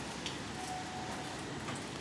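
Steady rain with a few sharp drops tapping close by, and a faint short steady tone about half a second in.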